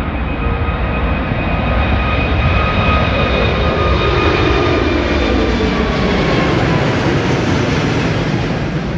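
Airbus A380's four turbofan engines at take-off thrust as the airliner climbs out and passes overhead: a loud jet rumble with steady whining tones. It is loudest a few seconds in, as the plane is overhead, and the whine and rumble drop in pitch as it passes.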